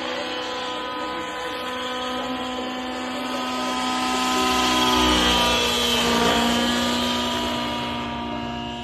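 Align 700N nitro RC helicopter's O.S. .91HZ glow engine with a Hatori tuned pipe running at high revs in flight, its whine and rotor noise mixed. It gets louder as the helicopter passes close, loudest about five seconds in, then fades as it flies away.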